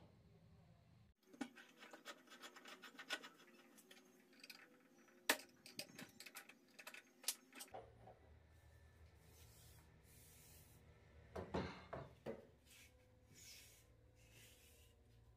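Quiet handling of wooden lathe stock by hand: a run of light clicks, knocks and rubbing lasting several seconds, then a few more scrapes and taps after a pause.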